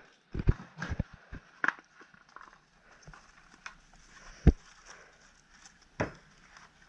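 Scattered knocks and clicks, a handful of separate sharp strikes with the loudest about four and a half seconds in, over a faint hiss. No engine is running.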